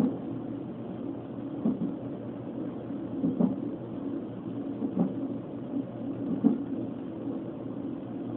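Fetal monitor's Doppler ultrasound audio carrying the fetal heartbeat, with a louder thump about every second and a half, five times: the unborn baby hiccuping at 32 weeks.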